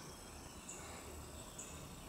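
Quiet background hiss with a faint high-pitched tone that comes and goes twice.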